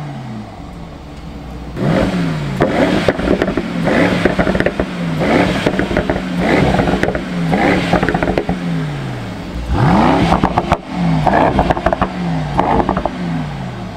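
Mercedes-AMG E63's twin-turbo V8 revved again and again through its open exhaust flaps. Each blip is followed by a falling engine note with crackles and pops on the overrun, from the software-tuned misfire.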